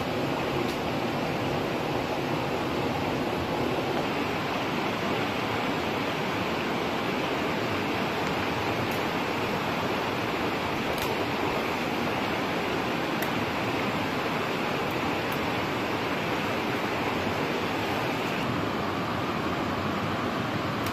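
Steady rush of fast-running stream water, an even unbroken wash of noise, with a few faint ticks over it.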